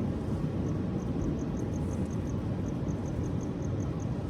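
Steady low rumble of jet aircraft from a nearby airport, with a cricket chirping in a fast, even rhythm of about five high-pitched chirps a second.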